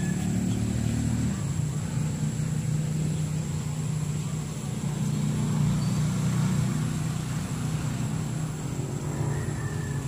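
Steady low hum of an idling engine, its pitch wavering slightly and swelling a little around the middle.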